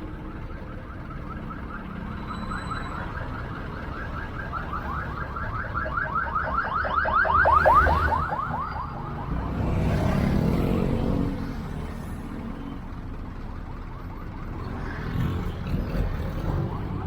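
An electronic siren yelping in a fast repeating warble, several sweeps a second, growing louder for several seconds and stopping about eight seconds in. Traffic engine rumble runs underneath and swells again just after.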